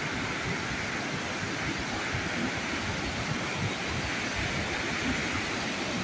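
Steady rush of a waterfall and the fast white water of the river just below it.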